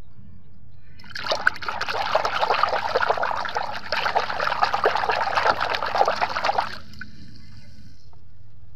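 Water splashing and sloshing as a hand swishes a plastic toy around in a basin of soapy water, starting about a second in and stopping shortly before seven seconds.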